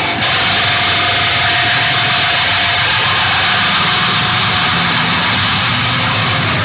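Harsh noise music: a loud, dense, unbroken wall of hiss-like noise over a low rumble, with a thin steady tone that fades out about halfway. A very brief dropout right at the start.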